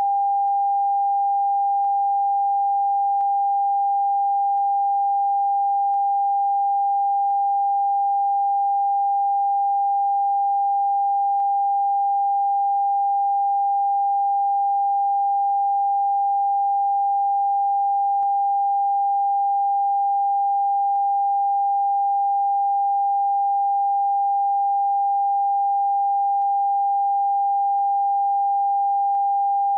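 Television test-card tone: one steady, unbroken beep of a single pitch, the signal that a station has ended its broadcast and gone off air.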